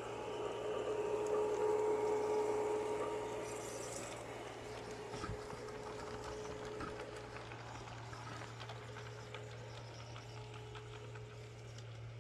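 A G-scale LGB model electric locomotive running past with its freight wagons: a steady motor-and-gear whine over the sound of its wheels on the track. It is loudest about two seconds in, then fades as the train moves away.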